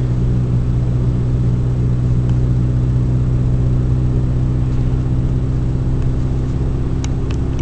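Saab 9000 cruising at a steady speed, heard from inside the cabin: an even low engine drone with road noise, holding constant throughout, with a couple of faint clicks near the end.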